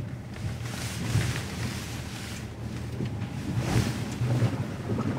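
Water rushing and splashing against an Ineos Grenadier as it wades through a deep ford, heard from inside the cabin over the low hum of its engine. The splashing surges about a second in and again near the end.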